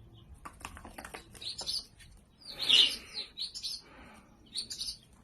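A bird chirping in short, high bursts, loudest a little past halfway, with light clicks or taps in the first couple of seconds.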